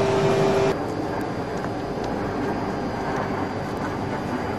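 Steady, even rumble of a commuter train standing at a station platform with its doors open, with no distinct events. Just under a second in, a different steady hum with two held tones cuts off suddenly.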